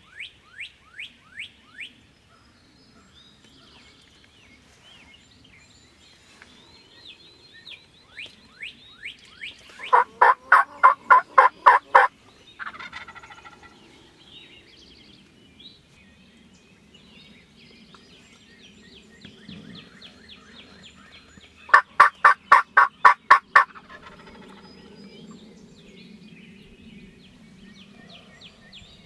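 Eastern wild turkey gobbler gobbling loudly twice, each gobble a fast run of notes lasting about two seconds, the two about twelve seconds apart. Before the first gobble, a bird gives series of short rising whistled notes.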